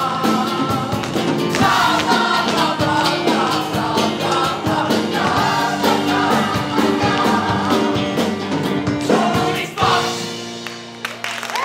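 Full ensemble singing a loud rock number with a live band of drums and electric guitar, the voices in many bending lines over the beat. About ten seconds in the song ends on a final held chord that fades away.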